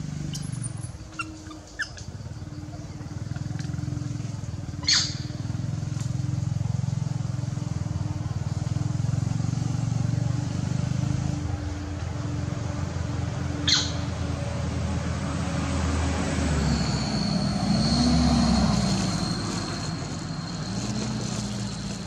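A motor engine running steadily, swelling louder late on. Two short, sharp high chirps cut through it, and a thin high whine joins in near the end.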